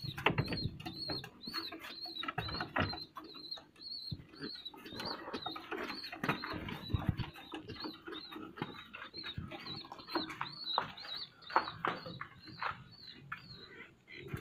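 Pigeons in a wooden loft being handled: wing flaps and sharp knocks and clicks against the cages, over a steady series of short high chirps about twice a second.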